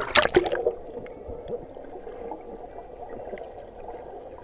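A few sharp splashes in the first half second, then a steady gurgle of running water that sounds muffled, with little high-end.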